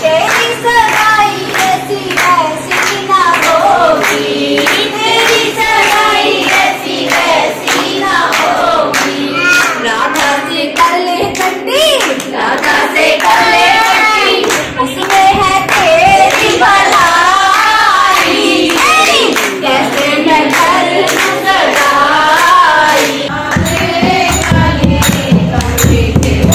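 A group of women singing a Krishna bhajan together, keeping time with steady hand-clapping. Near the end a deep, steady low sound joins in under the singing.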